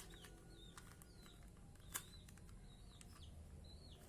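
Near silence with faint bird chirps in the background, short curving calls repeated about twice a second, and a soft click about two seconds in.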